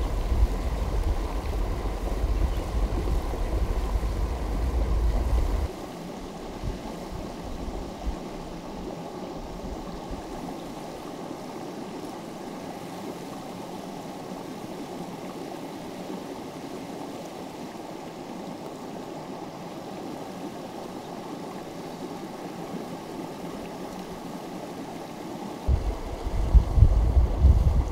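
A stream rushing steadily over a rocky bed. Wind buffets the microphone as a low rumble for about the first six seconds and again near the end.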